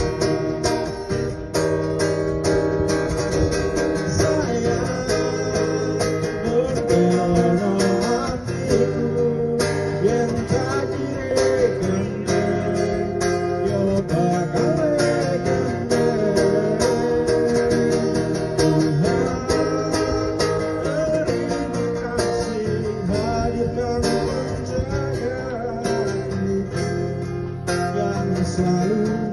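Acoustic guitar strummed and picked as live accompaniment, with a voice singing a wavering melody over it.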